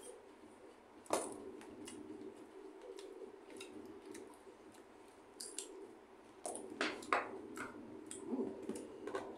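Metal spoon and fork clinking and scraping against plates while eating: one sharp click about a second in, then a cluster of clicks near the end.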